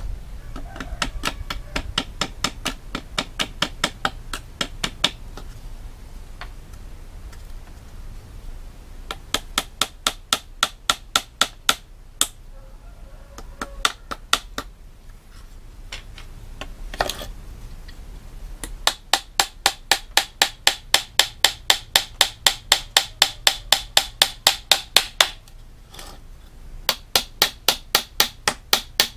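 Small hammer tapping a nail into the thin wooden strips of a frame, in runs of light, even strikes about three a second with pauses between them. The longest and loudest run comes in the second half.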